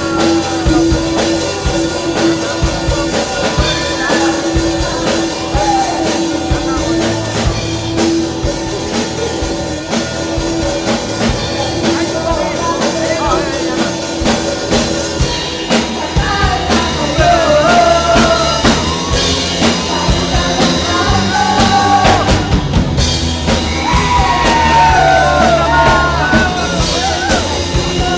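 Rock band playing live: drums and guitar with a held steady note at first, then a lead voice singing from a little past halfway.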